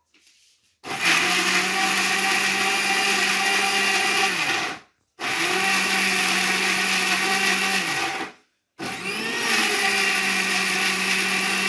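Electric mixer grinder running in three bursts of about three to four seconds each at a steady pitch, switched off briefly between them so the motor winds down each time.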